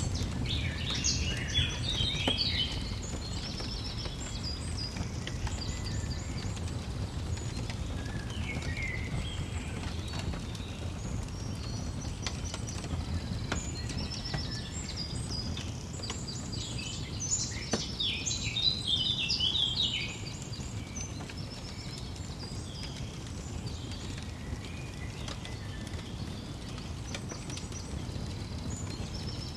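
Songbirds singing in bursts of quick chirps and twitters, loudest near the start and again past the middle, over a steady low rumble with a few sharp crackles of a wood fire.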